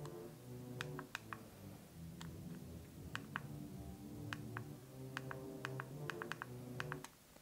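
Irregular clicks of a Nokia 7250i's keypad buttons pressed by a thumb while paging through the phone's menu, with soft background music underneath.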